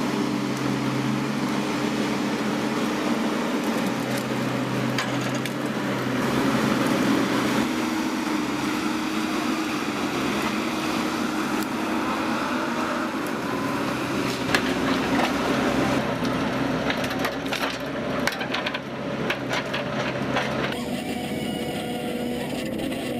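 Engine-driven wood-processing machinery running steadily, with wood cracking and splintering in a run of sharp cracks past the middle; the sound changes abruptly twice near the end.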